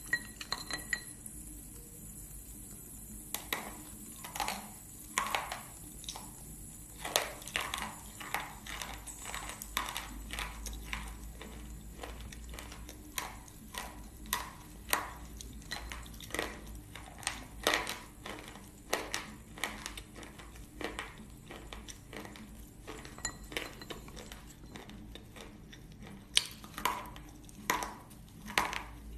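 Slate pencil being bitten and chewed close up: a string of sharp, crisp crunches, about one to two a second, starting a few seconds in.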